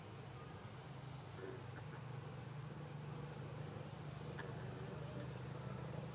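Insects trilling in the background: short, steady high-pitched trills that start and stop every second or so, over a faint steady low hum.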